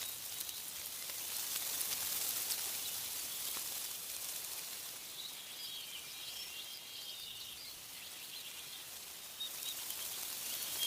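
Wind rustling through tree leaves, a steady high hiss that swells and eases, with faint bird chirps about halfway through.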